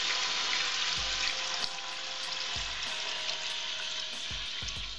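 Water pouring in a steady stream from a plastic bowl into a stainless steel stockpot, with a few dull low knocks.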